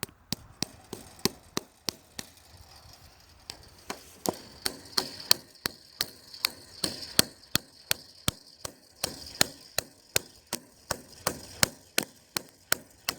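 Hammer driving a nail into a wooden fence post: a long run of sharp blows about three a second, with a short pause about two seconds in before the strikes resume.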